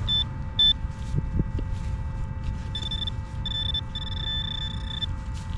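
A metal detector beeping with a high, steady tone: two short beeps, then three longer held tones, the last lasting about a second, as it sounds off on a buried target the detectorist reads as possibly silver.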